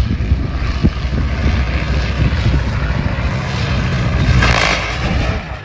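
Propeller fighter aircraft's engine running with a heavy low rumble and wind noise on the microphone, with a brief louder rush of noise about four and a half seconds in.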